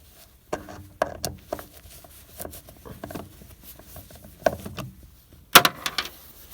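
Scattered clicks, light knocks and scrapes of screws being taken out of a refrigerator's plastic control panel, with one louder knock about five and a half seconds in.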